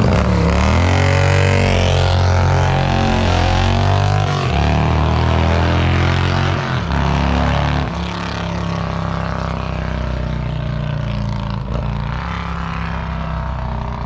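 Harley-Davidson touring motorcycle's 114 cubic-inch V-twin, with a 468 cam, S&S headers and SVT Jackhammer mufflers, accelerating hard away from a standstill. The pitch drops sharply at each of three upshifts, then the sound falls off about eight seconds in as the bike gets farther away.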